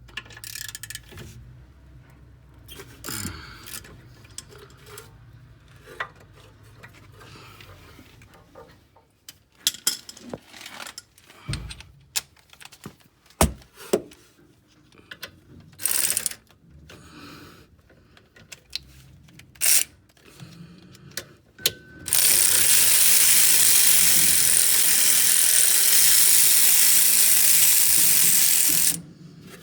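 Ratchet with a 7 mm Allen bit working the rear brake caliper bolts loose: scattered clicks and knocks of the ratchet and tools. About 22 seconds in, a loud steady hiss starts, lasts about seven seconds and cuts off.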